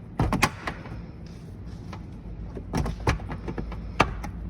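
Several sharp plastic clicks and knocks of a pry tool working at an interior trim clip that won't pop out, over a steady low hum.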